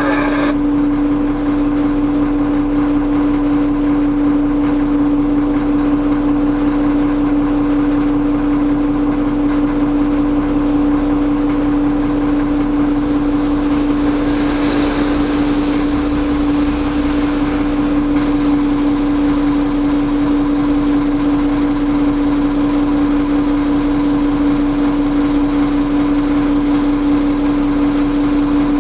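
Vehicle engine running at a steady speed with a constant droning hum. A rushing noise swells for a few seconds about halfway through.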